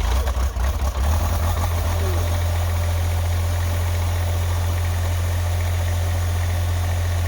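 Diesel engine of a 2-ton Chinese mini excavator just after a cold start in freezing weather, following six weeks unused. It runs a little unevenly for the first second or so, then settles into a steady idle.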